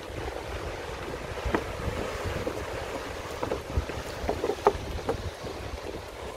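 Wind buffeting the microphone over the steady hiss of surf breaking on rocks, with a low rumble and a few short knocks.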